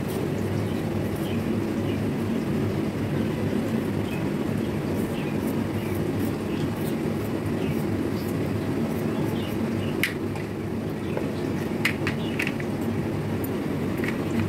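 Fish frying in hot oil in a pan: a steady sizzle with scattered small crackles. A few sharper clicks come near the end.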